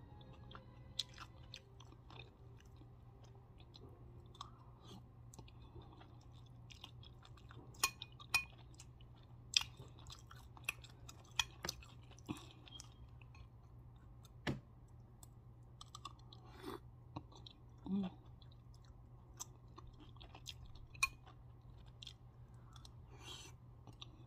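Close-up chewing and mouth sounds of someone eating gumbo and rice off a metal spoon, with scattered sharp clicks, the loudest a cluster about eight to ten seconds in. A steady low hum runs underneath.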